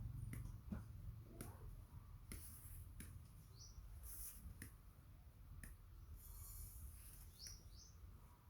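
Faint scattered clicks and light knocks from small animals moving about at play, with a few brief, high, rising squeaks from a young animal, twice about four seconds apart.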